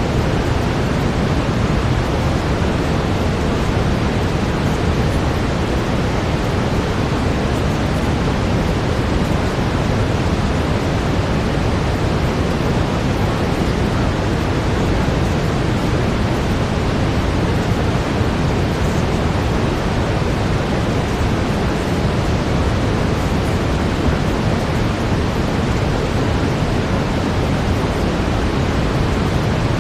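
Steady brown noise: an even, deep rushing hiss with most of its weight in the low end, unchanging throughout.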